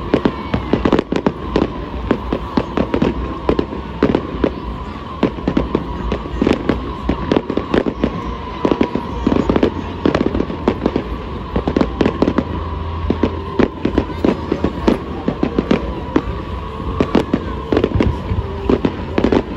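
Fireworks display: a rapid, irregular barrage of bangs and crackles from shells bursting, several a second and never letting up.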